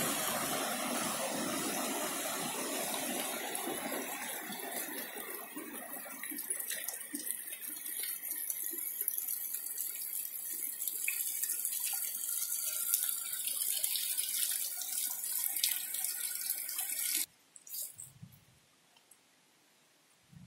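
Running water of a rocky stream, a steady rush that slowly grows fainter, with scattered light clicks; it cuts off suddenly near the end, leaving near silence.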